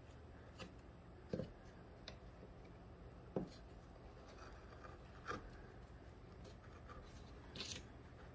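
Faint, short scrapes and small cuts of a hand carving tool in tree bark, about five strokes spaced irregularly.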